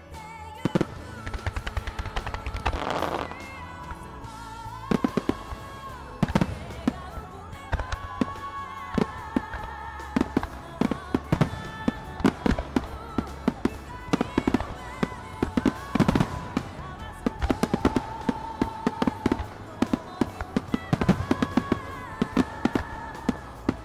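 Starmine fireworks: aerial shells bursting with sharp bangs, a few at first and then in a rapid barrage from about five seconds in, over music played for the show.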